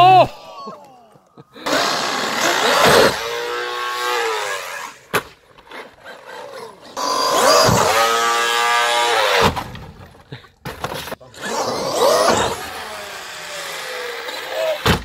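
Traxxas X-Maxx RC monster truck's brushless electric motor whining as it revs up and falls away in three long bursts, with rushing tyre noise on concrete. A single sharp knock comes about five seconds in.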